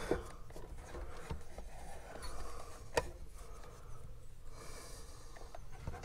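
Faint handling noises from a plastic fridge control box being worked on with a small Torx screwdriver: light rubbing and scraping, with one sharp click about three seconds in and a brief scrape near the end.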